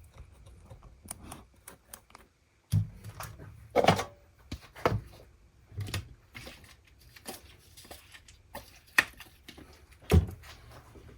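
Irregular clicks, taps and a few louder knocks from handling a plastic bottle and a petrol container, with no steady pouring sound.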